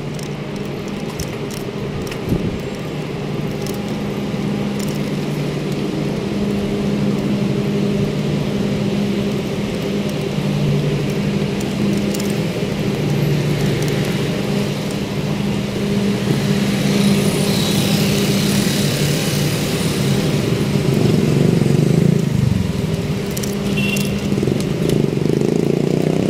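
Street traffic: a steady engine hum with vehicles passing, swelling a little past the middle.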